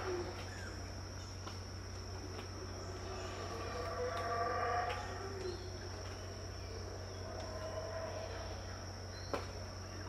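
Black howler monkeys roaring at dawn, out of sight: their deep droning roars swell about four seconds in, fade, and rise again near eight seconds, under a steady high-pitched whine. A sharp click comes near the end.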